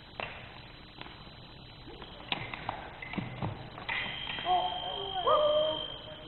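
Foil bout on a wooden gym floor: sharp clicks and a few low stamps of footwork and blade contact, then the electric scoring box sounds a steady high tone for about two seconds as a touch lands, with voices shouting over it.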